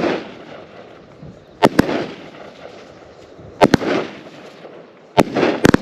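Raccoon Color Storm 19-shot 200-gram fireworks cake firing: sharp reports about every two seconds, often two in quick succession, each followed by a short fading noisy tail.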